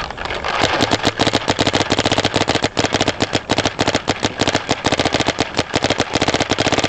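Paintball marker firing in a rapid, continuous string of shots, many a second, each a sharp pop close to the microphone.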